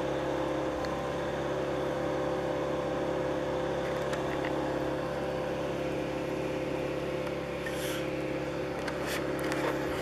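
Ski chairlift running, driven by what is said to be a lawnmower engine: a steady drone that holds one pitch throughout, with a couple of faint clicks near the end.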